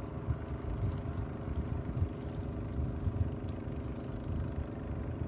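Fishing-boat engine running steadily, a continuous even drone over an uneven low rumble.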